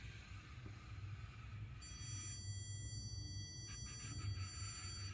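Electronic stud finder giving a steady high-pitched tone, starting about two seconds in, which signals that it has detected a wall stud behind the sheetrock. A low steady hum runs underneath.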